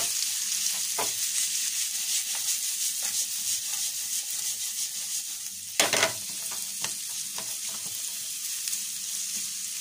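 Sliced onions with ginger, garlic, green chillies and curry leaves sizzling in hot coconut oil in a nonstick frying pan. A wooden spatula stirs them, scraping and ticking against the pan, and there is one louder knock about six seconds in.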